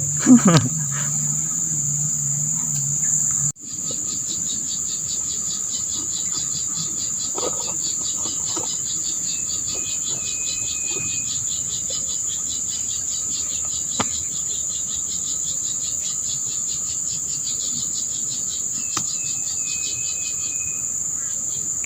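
Insects droning steadily at a high pitch, with a fast pulsing trill under the drone. About three and a half seconds in, the sound cuts out briefly and resumes, and there is a single click later on.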